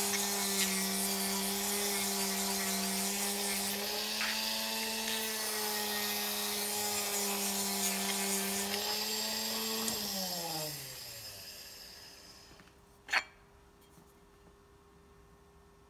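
Small rotary polisher spinning a flap wheel inside a cast-metal bore, a steady high whine with a grinding hiss as it smooths out high spots. About ten seconds in it is switched off and winds down, falling in pitch, and a single sharp click follows.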